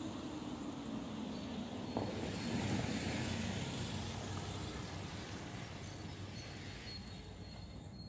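A car driving past close by over brick paving, its tyres hissing on the bricks, and rolling away to a stop; the sound swells about two seconds in and fades slowly.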